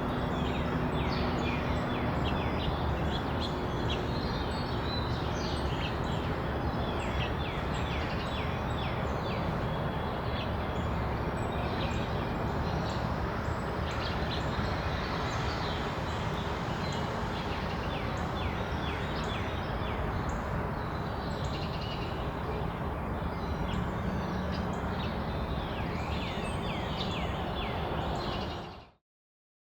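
Many small birds chirping in quick short notes over a steady outdoor background hum; the sound fades out near the end.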